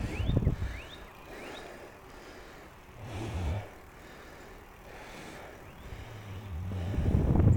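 Heavy, puffing breaths of a cyclist winded from a steep climb, coming every few seconds, with a few quick rising chirps in the first second or two and a low rumble building near the end as the bike rolls along.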